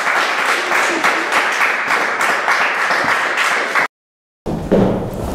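A small audience applauding. The clapping cuts off abruptly about four seconds in, with half a second of dead silence before quieter sounds resume.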